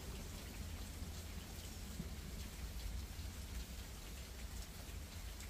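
Steady rain falling, an even hiss with scattered faint drop taps, over a steady low rumble.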